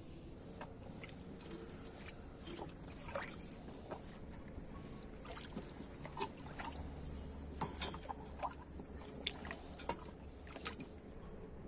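Holstein cows drinking at a concrete water trough: soft slurping and sloshing of water, with many brief sharp little sounds scattered through.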